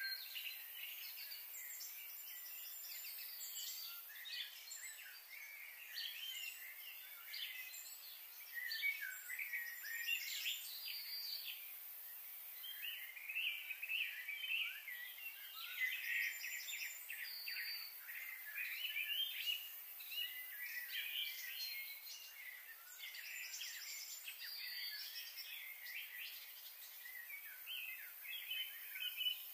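Small birds chirping and trilling, many short overlapping calls that keep going, over a faint steady background hiss.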